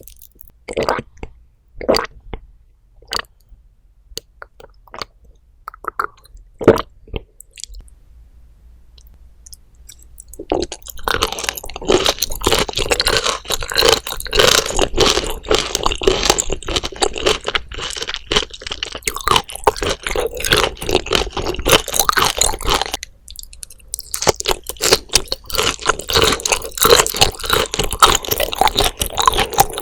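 Close-miked chewing of raw flounder sliced bone-in (sekkosi), the fine bones crunching between the teeth. A few sharp separate clicks and taps come first; about a third of the way in, steady crunchy chewing starts, breaks off briefly about three quarters through, then resumes.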